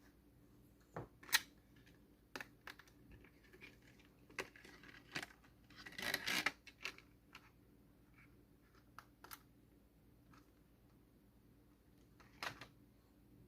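Scattered sharp clicks and taps of hands handling computer hardware, with a short scraping rattle about six seconds in.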